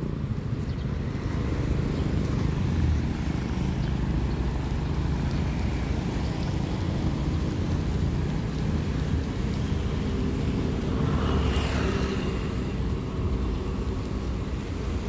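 Road traffic: a steady low rumble of passing vehicle engines and tyres, with one vehicle passing close about eleven seconds in.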